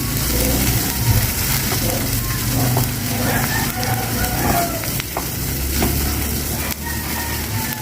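Food sizzling in a hot pot on the stove, over a steady low hum, with a few sharp clicks from about halfway through.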